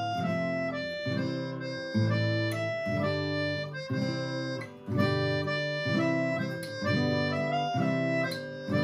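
Acoustic guitar strummed in a steady rhythm while a harmonica plays the melody over it in held notes, with a brief break near the middle.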